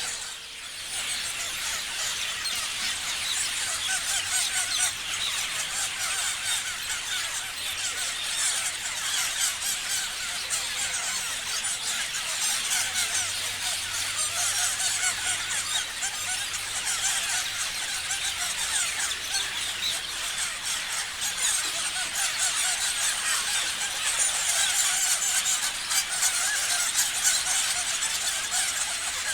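A flock of parrots chirping continuously, many short high calls overlapping in a dense chorus.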